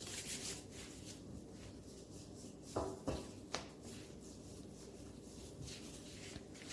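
Hands rubbing and turning floured balls of samosa dough on a work surface, a soft shuffling sound, with three light knocks a little before the middle.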